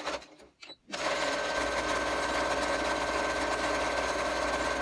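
Electric sewing machine stitching a hem at a steady speed, a fast even rattle of the needle and feed that starts about a second in and stops suddenly near the end. A few small clicks come before it.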